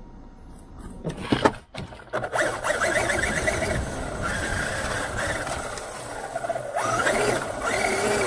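A few sharp knocks and thumps, then a Traxxas Unlimited Desert Racer RC car's electric motor and drivetrain whining as it drives over grass, the pitch rising and falling with the throttle.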